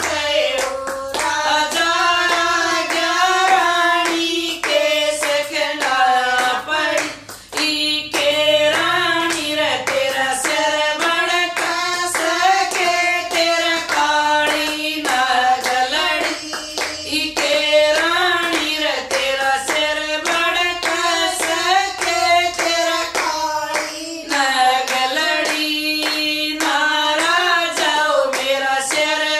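Women singing a Haryanvi bhajan together, keeping time with steady hand claps.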